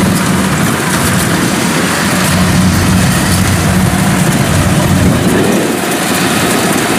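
Kubota DC-70 rice combine harvester running steadily under load while cutting and threshing rice: a constant diesel engine hum under the dense whirring of its machinery.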